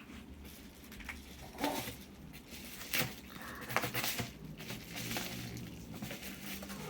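Rustling and clicking of a parcel's packaging being handled: irregular short crinkles and taps.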